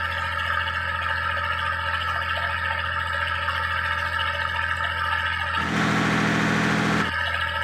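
Lifeboat's Si Yang marine diesel engine running steadily during a test run, with a strong low hum. The tone shifts abruptly for about a second and a half after five seconds in.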